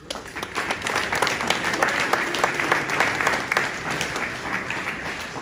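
Small audience applauding: many hands clapping together. It starts at once, then thins out near the end.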